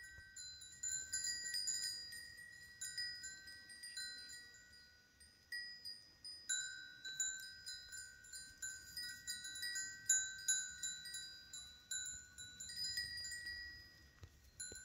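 Metal chimes ringing at irregular moments, mostly on two pitches, a lower and a higher one, each strike ringing on and fading.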